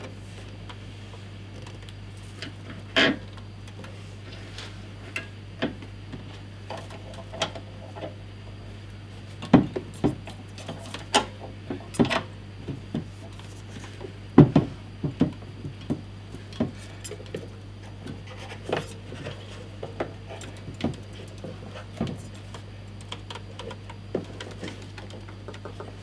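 Irregular clicks, knocks and rattles of a portable metal band saw's levers, handle and clamp being worked by hand, the saw's motor not running, over a steady low hum.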